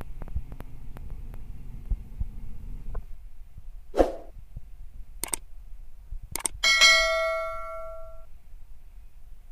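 Subscribe-button animation sound effects: a swoosh and a few sharp mouse-clicks, then a notification bell ding that rings out for about a second and a half. A low outdoor rumble underlies the first three seconds, then drops away.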